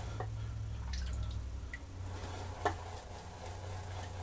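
Vie-Long horsehair shaving brush swirling wet soap lather in a bowl: a soft, wet stirring sound over a low steady hum, with a light click about a second in and a sharper one about two and a half seconds in.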